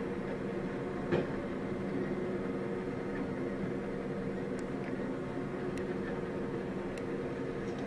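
Flatbed tow truck's engine running steadily, driving the winch that pulls a car up the tilted bed. A single knock sounds about a second in, with a few light clicks later.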